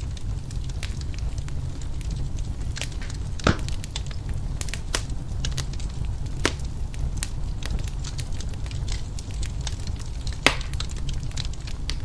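Wood fire crackling in a fireplace: many small sharp pops at irregular intervals over a steady low rumble, with two louder pops, one about three and a half seconds in and one near the end.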